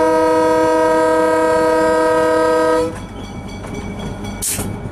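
GE 70-tonner locomotive's air horn holding one long blast of a chord of several notes, which cuts off sharply about three seconds in. After it, the locomotive runs on under the cab noise, with a brief sharp noise burst near the end.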